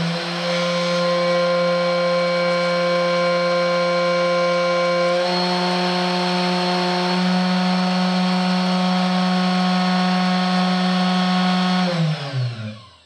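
CNC 3018 Pro spindle motor running unloaded, with no cutter fitted, on a test run: a loud, steady whine whose pitch shifts slightly about five seconds in. Near the end it is switched off and winds down with a falling pitch until it stops.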